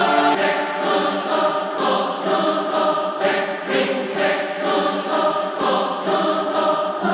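Music: a choir of layered voices singing held chords, with no drums or bass.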